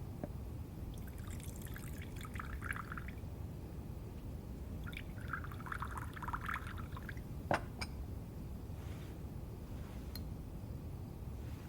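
Liquor poured into a cup twice, each pour trickling for about two seconds, followed by a short sharp knock about seven and a half seconds in.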